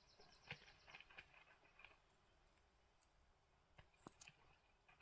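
Near silence, with a few faint scattered clicks and taps in the first two seconds and a few more about four seconds in.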